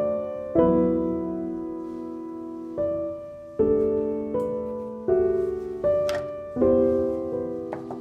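Background music: keyboard chords struck one after another, each left to ring and fade before the next.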